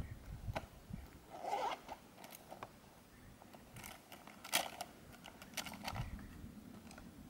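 Close handling sounds of a fabric pencil case and coloured pencils: soft rustling and scattered light clicks and taps as pencils are taken out and handled.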